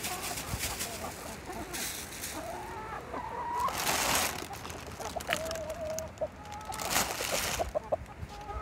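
Brown laying hens clucking and calling as they feed, with one drawn-out call in the middle and short rustling noises about four and seven seconds in.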